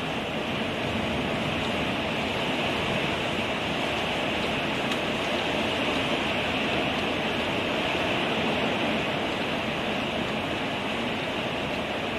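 Torrential rain pouring down steadily in a thunderstorm, an even, unbroken rush.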